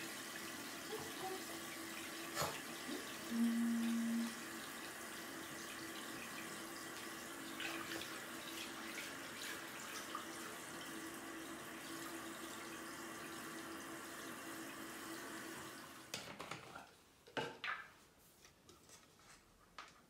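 Water running from a shower hose into a plastic bin that already holds water, a steady rushing that stops about three-quarters of the way through. A few short knocks follow.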